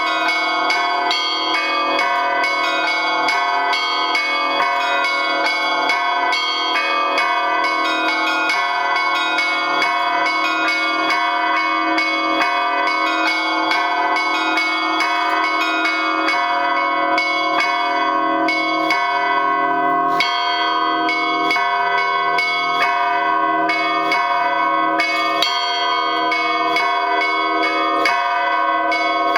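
Russian church bell peal (kolokolny zvon) on eight bells: one large, four medium and three small. They are struck in a steady three-beat (3/4) rhythm, their many ringing tones overlapping without a break. The bells come from different old Russian foundries, and many of them are damaged.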